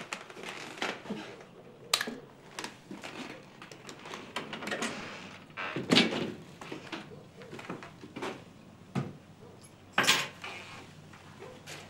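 A room door opening and closing amid footsteps and small clicks and knocks, the loudest knock about six seconds in as the door is pushed shut. Near ten seconds a bag is set down on a wooden cabinet with another knock.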